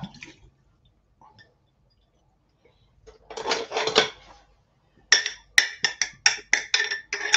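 Mince tipped from a glass jar into a frying pan with a short scraping rush, then a quick run of ringing clinks as kitchenware is struck again and again, about three to four a second.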